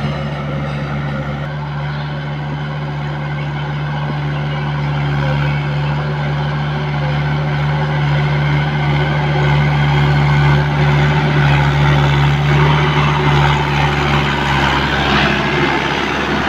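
Diesel farm tractor engine running steadily under load, working cage wheels through a flooded paddy field during ploughing. It grows louder in the second half as the tractor draws near.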